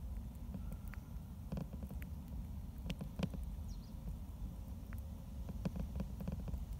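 A mole eating from a plastic food bowl: small irregular clicks and crunches, a few a second, over a steady low rumble.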